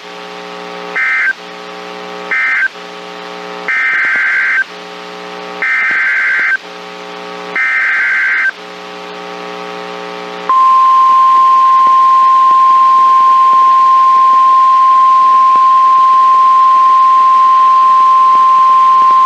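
NOAA Weather Radio alert signalling over a low electronic buzz: three short screeching data bursts (the SAME end-of-message code closing the previous warning), then three longer data bursts (the SAME header of the next warning). About ten seconds in, the buzz gives way to the 1050 Hz Warning Alarm Tone, one loud steady tone held for about nine seconds.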